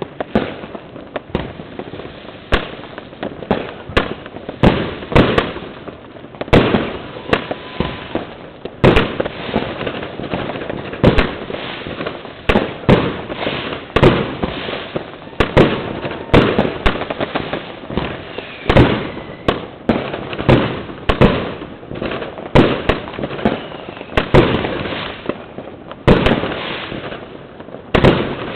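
New Year's fireworks: a continuous, irregular barrage of rocket and firecracker bangs, several a second and some much louder than others, with crackling in between.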